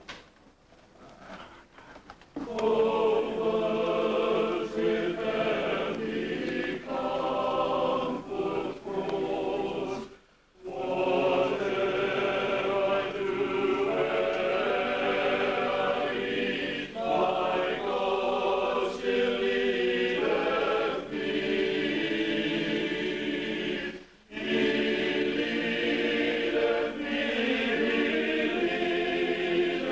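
Mixed choir of Salvation Army songsters, men and women, singing together. They come in about two seconds in, with brief breaks between phrases near ten and twenty-four seconds.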